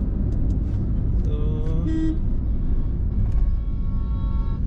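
Steady road and engine rumble inside a moving car's cabin with the windows shut. A short pitched sound comes about a second and a half in, and a steady pitched tone is held through the second half.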